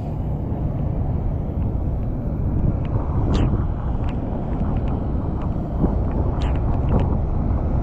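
Steady low rumble of wind buffeting the microphone over the river, with a few short, sharp ticks about three and six and a half seconds in.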